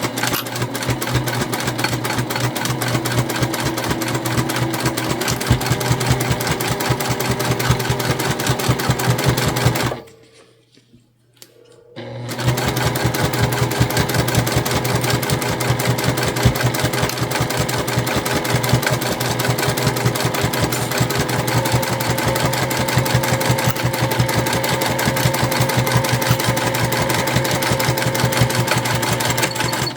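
Sewing machine stitching a seam at a fast, steady run of needle strokes. It stops for about two seconds about ten seconds in, then runs on.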